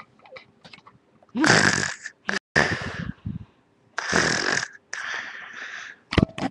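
Someone snoring loudly in their sleep, about five snores in a row, each shorter than a second.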